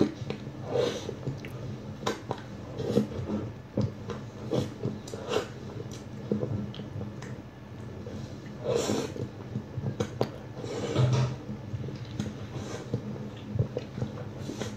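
Eating sounds of someone chewing: irregular wet mouth smacks and squelches, coming every second or so.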